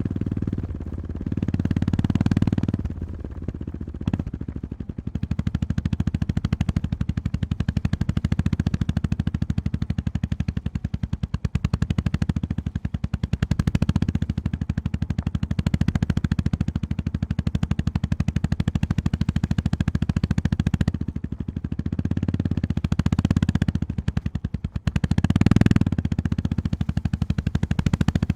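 Honda GB350S's air-cooled single-cylinder engine running at low revs, each exhaust pulse distinct in a rapid, even thumping. The throttle opens briefly a few times, most strongly near the end.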